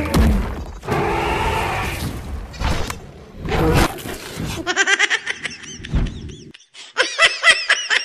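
Edited comedy sound effects: a long, noisy crash-like burst, then short squeaky chirps, and from about seven seconds in a fast, high-pitched snickering laugh repeating about five times a second.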